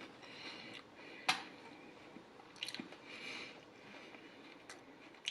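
Close-up chewing of a mixed salad, wet and squishy, with one sharp crunch about a second in and a few quick clicks near the middle. Wheezy breaths come between the chews.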